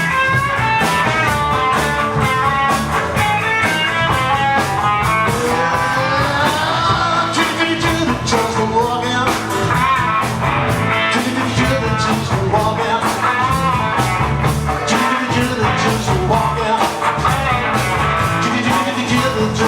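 Live rock-and-roll band playing an instrumental break, with a steady drum beat, bass and a lead line whose notes bend and glide in pitch.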